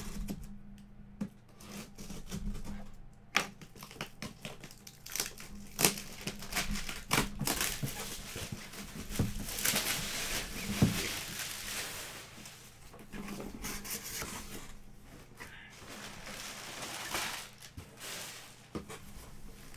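Packing tape being cut on a cardboard box and the cardboard flaps pulled open, with scattered knocks and scrapes, then clear plastic wrapping crinkling as it is handled.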